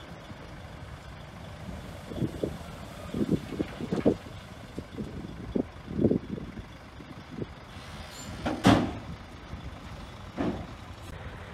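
Heavy earthmoving machinery at work: a low, steady engine rumble with a series of irregular clunks and knocks, the loudest about two-thirds of the way through.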